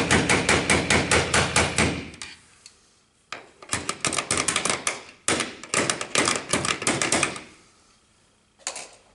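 Rapid metal-on-metal tapping, about six strikes a second, as 9-inch Klein lineman's pliers knock the steel Madison strap tabs flat inside a metal old-work box. The tapping stops about two seconds in, comes back in several quick runs from about three seconds in, and gives a short last run near the end.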